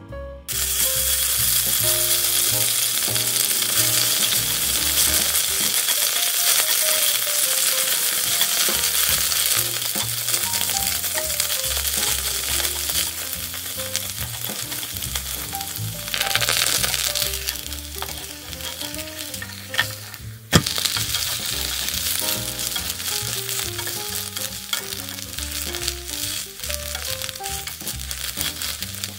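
Shredded potato and tofu frying in olive oil in a nonstick pan: a steady sizzle that starts abruptly about half a second in, with a sharp knock about twenty seconds in.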